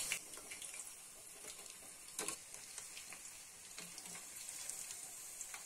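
Cabbage fritters deep-frying in hot oil in a steel kadai: a faint, steady sizzle with fine crackling, with one light knock about two seconds in as the fritters are turned.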